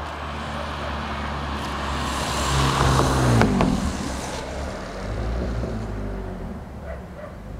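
Electric RC on-road car with a 4300kV brushless motor on a 3S LiPo speeding past: its high motor and gear whine grows louder, then drops sharply in pitch as it passes about three and a half seconds in. A steady low hum runs underneath.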